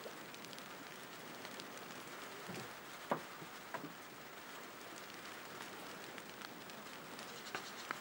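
Small wood fire crackling under fish grilling on a metal grate: a soft steady hiss with scattered sharp pops, the loudest about three seconds in.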